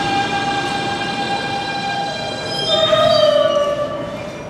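R160B subway train with Siemens propulsion braking into the station: a steady electric whine over the rumble of steel wheels on rail. About two and a half seconds in, the whine drops and slides lower in pitch as the train slows toward a stop.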